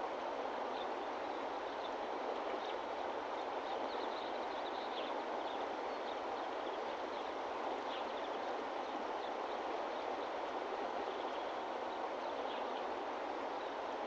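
Nature ambience: a steady rushing of running water, with faint short bird chirps scattered through it.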